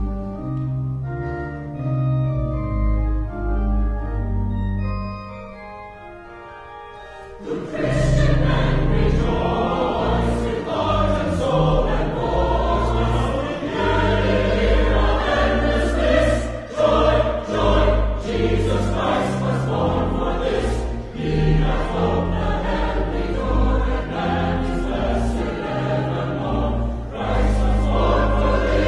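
Choral music: a soft, sustained instrumental passage, then about eight seconds in a choir and full accompaniment come in loudly together.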